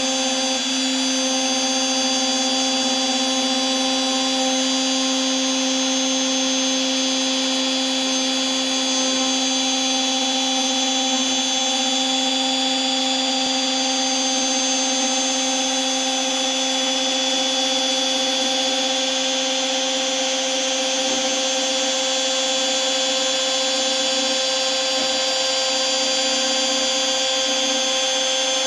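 DeWalt 611 trim router on a LowRider 2 CNC, spinning a 1/8-inch single-flute bit at a low dial setting while it slots HDPE at 5.2 mm depth: a steady whine with the hiss of the bit cutting plastic, unchanging throughout.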